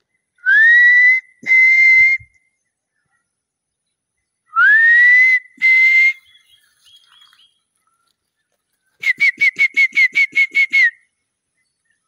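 A person whistling in imitation of a bird call. Twice there is a pair of clear notes, the first rising up into the second, which is held. Near the end comes a quick warbling run of about ten short notes.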